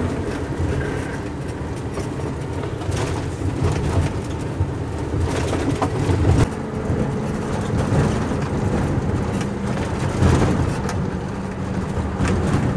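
Ford Cargo dump truck's diesel engine running as the truck drives slowly over a bumpy dirt road, heard from inside the cab. Every few seconds the body knocks and rattles as the unsprung rear tandem, which has no shock absorbers, bounces over the ruts.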